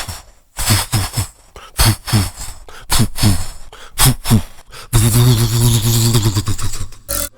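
Beatboxing: a rhythmic beat of mouth kick drums with a dropping pitch and sharp snare and hi-hat sounds, then a sustained buzzing bass note for about two seconds, starting about five seconds in.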